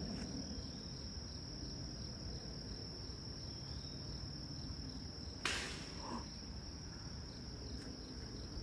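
Crickets trilling in a steady high drone over a low outdoor rumble, with one sharp snap about five and a half seconds in.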